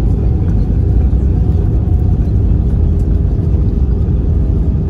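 Steady low rumble heard inside the cabin of an Airbus A320 rolling out along the runway after touchdown, with its ground spoilers raised, and a faint steady hum running through it.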